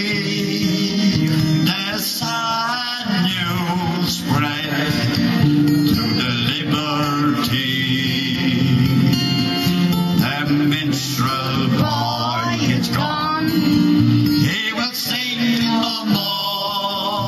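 A man singing a slow ballad live into a microphone, holding long notes with a wide vibrato, over a guitar accompaniment.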